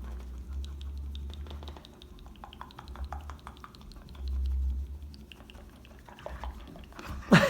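A dog's claws clicking and scrabbling on a hard floor as it runs after a thrown toy: a quick run of small, sharp clicks. There is a brief low rumble a little after four seconds in.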